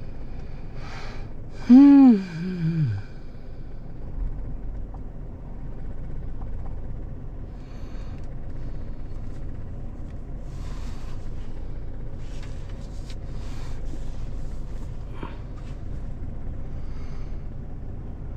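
Hurricane wind buffeting a truck, heard from inside the cab as a steady low rumble, with scattered short rustles and knocks later on. About two seconds in, a loud groan from a person's voice falls in pitch over about a second.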